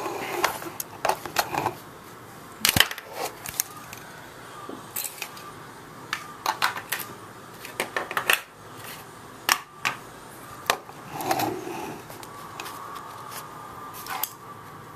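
Parts of a disassembled Xbox 360 controller being handled and set down: irregular sharp clicks and light clatters.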